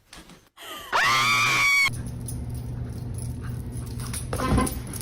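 A shrill scream that glides up in pitch and is held for about a second. A steady low hum follows it, and a short cry comes near the end.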